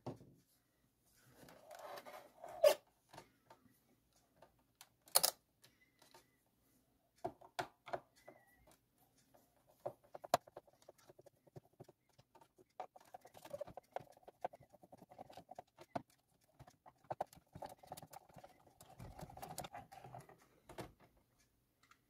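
A screwdriver turning out small screws from the plastic chassis of a Xiaomi Mi Robot Vacuum 1S to free a drive-wheel module, with fast rattly clicking in two stretches. Scattered sharp clicks and knocks come from plastic parts being handled, the loudest a few seconds in.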